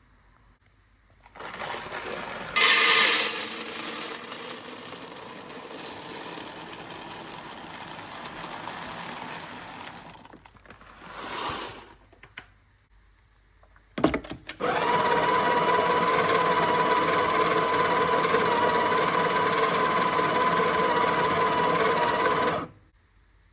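Sage espresso machine running in two long stretches. First comes a hissing whir of about nine seconds with a brief extra burst after it. Then, after a click, a steady whirring with a clear pitch runs for about eight seconds and stops abruptly.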